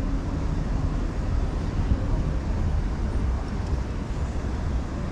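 Wind buffeting the microphone: a steady, uneven low rumble that wavers throughout.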